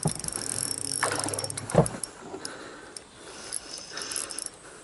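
Spinning reel clicking in quick runs of fine ticks as a large black bass is played to the landing net, with one heavy thump a little under two seconds in.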